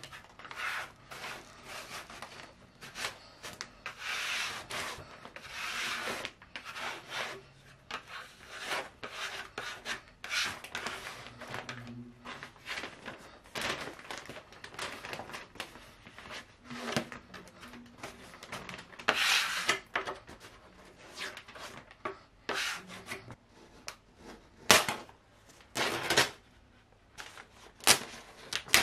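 Vinyl contact paper being unrolled, smoothed and rubbed down onto a desk top with a plastic smoothing card. It makes irregular rustling, crinkling and scraping, with a few sharper crackles near the end.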